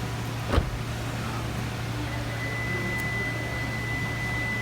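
A single thump about half a second in, then a long, steady, high-pitched beep from the 2016 Hyundai Sonata starting about two seconds in: the warning it gives when the lock is worked with the smart key still inside the car. A steady low hum runs underneath.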